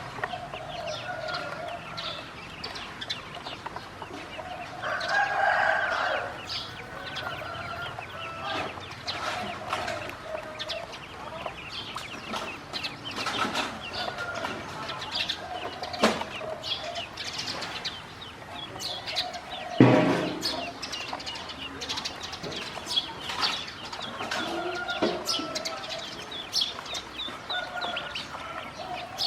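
Poultry calling: a busy stream of short, high chirps from ducklings, with longer, lower fowl calls now and then and one loud, short call about two-thirds of the way through.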